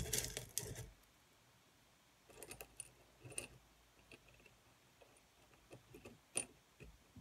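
Small white decorative stones clinking against a glass dish as they are handled and dropped in by hand: one sharp knock at the very start, then scattered light clicks.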